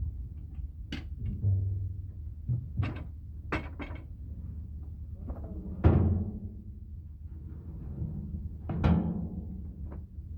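Heavy metal knocks and clanks during hydraulic cylinder work, about eight irregular strikes, several ringing briefly, the loudest about six seconds in, over a steady low hum.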